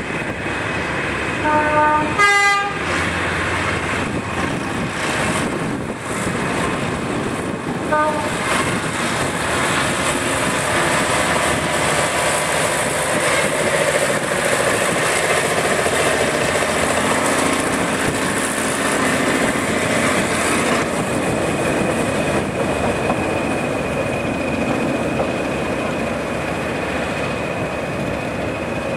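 Small narrow-gauge diesel locomotive sounding its horn: a short toot about one and a half seconds in, a longer one right after, and another brief toot about eight seconds in, over the steady running of its diesel engine as it moves along the track.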